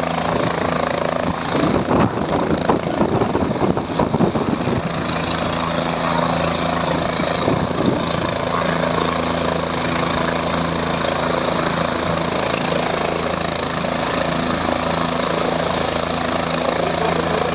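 Helicopter running on the helipad with its rotor turning: a steady engine whine and rotor drone over a broad rushing noise. From about two to five seconds in, the rushing turns uneven and gusty.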